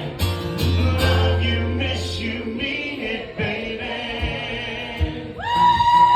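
Live stripped-down country song: singing over acoustic backing, with a long held high note coming in near the end.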